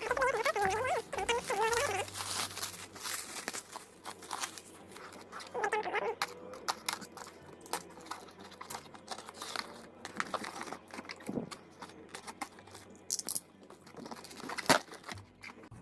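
The cardboard box of a mechanical keyboard being opened and its packaging handled: crinkling, rustling and scattered clicks and taps, with one sharp knock near the end.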